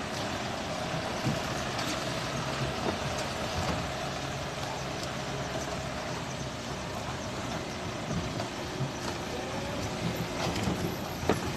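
Steady engine and road noise of a vehicle driving over a rough, broken road, with a few short knocks and rattles, the loudest near the end.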